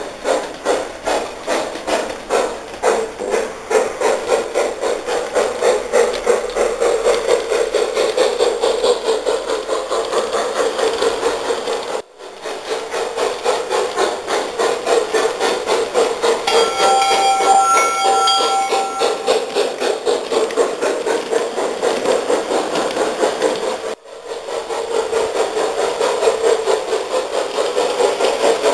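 G scale model steam locomotive and carriages running on garden-scale track, a rapid even clicking rhythm of wheels on the rails and the drive mechanism. A little past halfway a steady high tone sounds for about two seconds.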